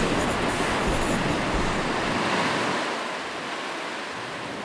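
A rushing, surf-like wash of noise laid under the logo reveal, loud at first, then losing its low end after about two seconds and fading steadily away.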